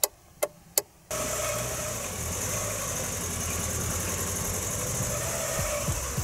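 Indicator or hazard-light relay ticking in the car's dark cabin, about three ticks a second, for about a second. Then the Ford Mondeo's engine idles steadily and smoothly, freshly restarted after its fuel pump was rebuilt.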